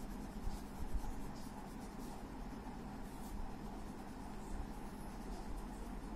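Coloured pencil scratching across paper in quick, uneven shading strokes, with a faint steady hum underneath.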